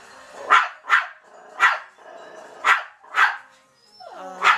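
Toy poodle barking in short, sharp barks, six of them at uneven intervals, with television sound faintly underneath.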